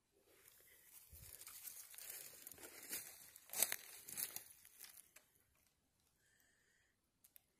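Rustling, crinkling handling noise with small crackles for about five seconds, loudest just past the middle, then two light clicks near the end.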